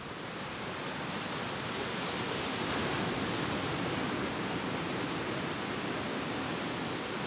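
Ocean surf breaking and washing over a rocky shore: a steady rushing hiss that fades in over the first couple of seconds.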